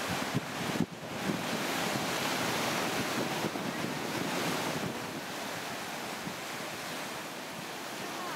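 Ocean surf washing in over lava rocks and a black sand shore. The wash swells about a second in and eases off after the middle, with wind buffeting the microphone.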